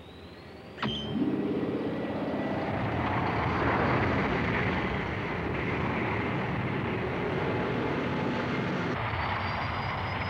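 Sci-fi spaceship engines starting up: a rising whine, a sharp click about a second in, then a steady jet-like rushing noise. Near the end a thin high whine climbs again over the engine noise.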